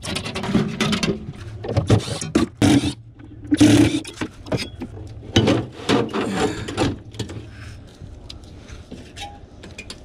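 Irregular clatter, clicks and scraping of metal parts and hand tools being handled inside a commercial refrigerated prep table, in several bursts that grow sparser in the last few seconds.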